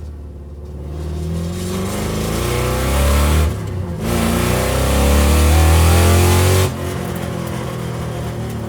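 2000 Ford SVT Cobra R's 5.4-litre V8 accelerating hard, its note climbing, with a quick upshift about three and a half seconds in, then climbing again before the note drops sharply near seven seconds in and the engine runs on quieter and steadier.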